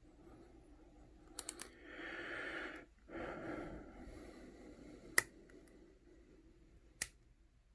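Small metallic clicks and taps of lock picks and a Master No. 160 brass padlock being worked by hand: a quick run of three clicks, two short hushing noises, then a single sharp click about five seconds in, the loudest, and a lighter one near the end.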